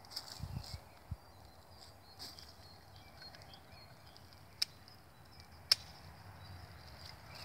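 Two sharp snips about a second apart as a pair of loppers cuts through blueberry canes during pruning, with a few dull low knocks near the start.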